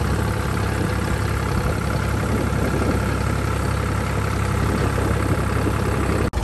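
Blue farm tractor's engine running steadily while the tractor drives along a gravel lane, heard from the driver's seat close to the exhaust stack.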